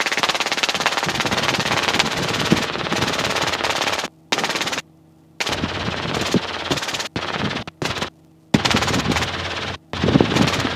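Robinson R22 helicopter in flight: dense, rapid pulsing engine and rotor noise in the cabin. It cuts out abruptly several times in the second half and comes straight back.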